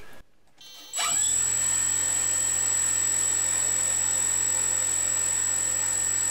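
Brushless RC motor spinning a propeller on a thrust stand, starting up sharply about a second in and then running at a steady speed. A high steady whine sits over the lower propeller hum.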